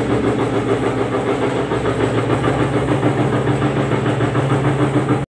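Velati double shaft paddle mixer running empty: its electric drive hums steadily as the two paddle shafts turn, with an even, fast pulsing. The sound cuts off abruptly at the end.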